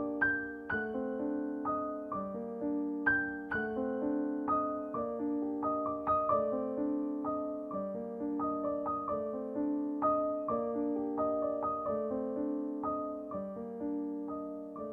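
Background piano music: a gentle melody of struck notes that ring and fade, at a steady, even pace.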